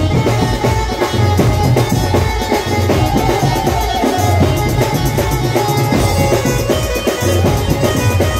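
Instrumental stretch of a live band playing a Marathi folk song: heavy drums keep a steady, driving beat under a sustained melody line.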